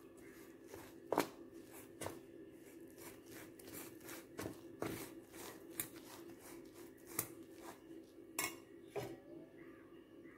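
Metal spoon clinking and scraping against a bowl at irregular intervals as flour is stirred into jaggery syrup to mix a batter, over a faint steady hum.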